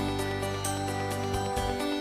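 Instrumental background music: held notes over a steady bass, with a light tinkling percussion keeping an even beat.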